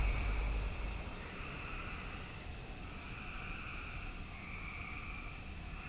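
Crickets chirping faintly: short high chirps about two a second over a steady faint trill. The tail of a music track fades out in the first second.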